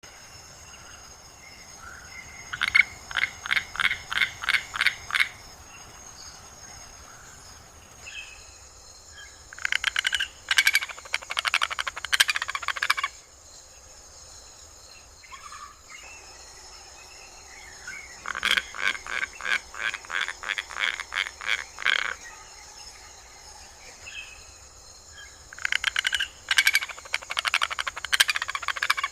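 A toucan calling in four bouts, each a rapid series of repeated calls at about three a second lasting a few seconds, over a steady high-pitched insect drone.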